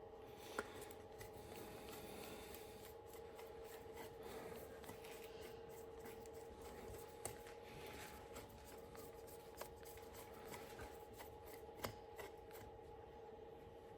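Faint rustling and a few light clicks of small carburetor parts being handled, over a steady low electrical hum.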